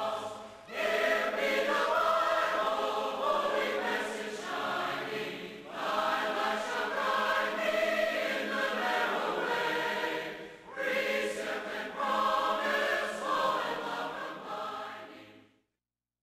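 A choir singing in several voices, in three long phrases with short breaks between them, then fading out shortly before the end.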